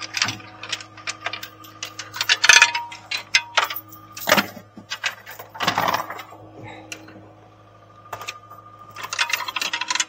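Steel chain clinking and clanking against engine metal as it is wrapped and hooked for a lift, in irregular metallic knocks with a short ring. The knocks pause for about a second near the end, then resume.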